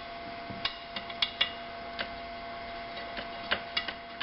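A hand wrench tightening a bolt on a brake master cylinder assembly: a series of sharp, irregularly spaced metallic clicks of tool on metal, over a steady faint hum.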